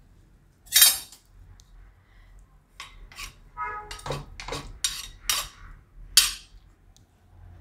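Spatula scraping and stirring a thick grated-turmeric-and-pea mixture in a nonstick kadai: a string of separate scrapes and knocks against the pan, about eight in all, with one brief ringing clink a little before the middle.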